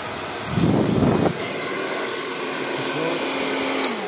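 Household hair dryer blowing air into an air conditioner's indoor coil to blow the dust out: a steady rushing noise with a louder gust about a second in. Near the end it is switched off and its motor whine falls away.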